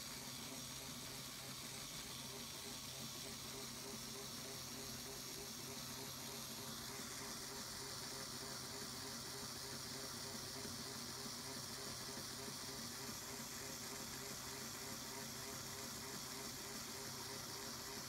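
Steady faint hiss with a low hum, with no distinct clicks, knocks or mechanical events.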